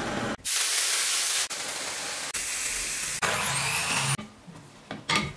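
Quick cuts between workshop tool sounds, each stretch lasting about a second and changing abruptly: a gas torch hissing, loud power-tool noise, and a drill press boring into a wooden handle, then a few light knocks near the end.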